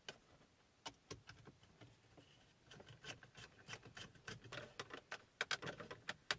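Screwdriver driving screws to fasten a metal bracket into a car dashboard: a few scattered light clicks, then a quick irregular run of small clicks and scrapes from about halfway through.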